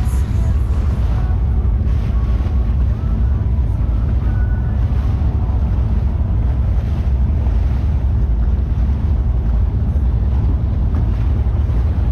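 Boat engines running at low no-wake speed, a steady deep rumble, with wind buffeting the microphone.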